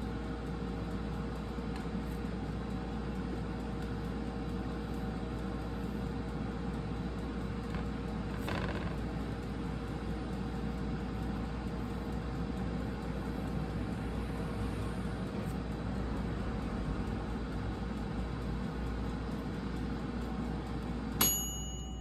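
Air fryer's fan running with a steady hum while it preheats. A sudden short high-pitched beep comes near the end.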